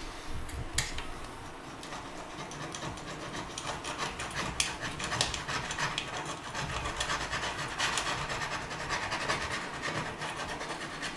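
A Stanley knife blade scraping leftover silicone sealant off ceramic wall tiles in many short, rapid scratchy strokes.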